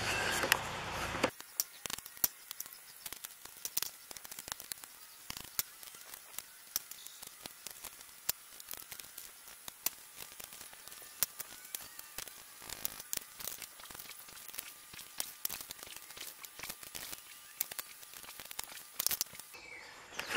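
Irregular sharp clicks and clinks of small metal scrap pieces being handled and picked up from a concrete floor, after about a second of louder rustling noise.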